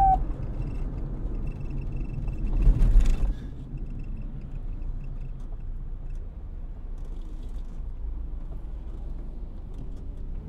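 A police siren winds down and cuts off at the very start, leaving the low steady rumble of an idling vehicle engine. A louder rushing swell rises and falls about two and a half to three seconds in.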